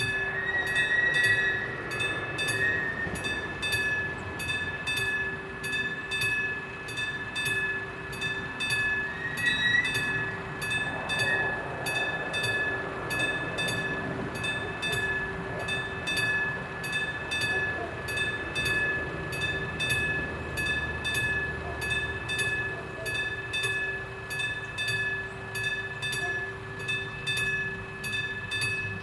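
Level crossing warning bell of an AŽD 71 installation ringing in a steady, even rhythm of somewhat under two strikes a second. It signals that the crossing is closed and a train is approaching.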